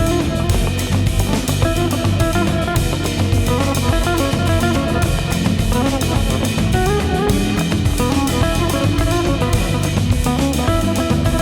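Background music: a band track with drum kit, guitar and bass playing at a steady beat.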